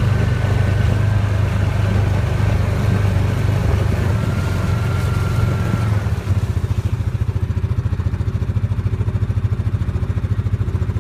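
Side-by-side utility vehicle's engine running while driving, with a faint high whine over it. About six seconds in the engine settles into a lower, evenly pulsing run.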